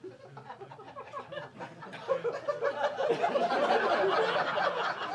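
Audience laughing, starting quietly and swelling into fuller laughter about two seconds in.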